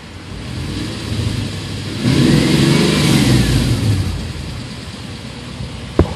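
Swapped-in Nissan VH45DE 4.5-litre V8 idling, heard from inside the cabin, revved once to about 2,500 rpm and let fall back to idle. A single sharp click comes near the end.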